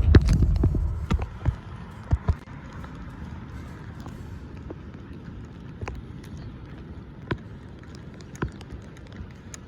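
Footsteps walking, an irregular series of soft taps and knocks about one a second, after a low rumble that dies away about a second in.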